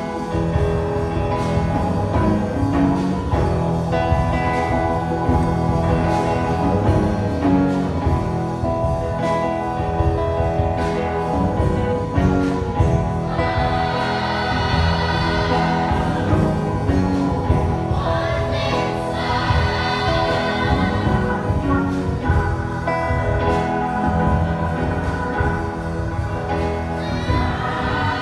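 Gospel choir singing with instrumental accompaniment and a steady beat; the voices swell louder twice around the middle.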